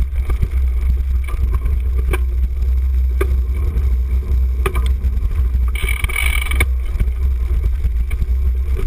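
Wind buffeting the microphone of a handlebar-mounted camera on a cyclocross bike riding over dirt and gravel, a steady low rumble with knocks and rattles from the bike over bumps. A brief burst of hiss about six seconds in.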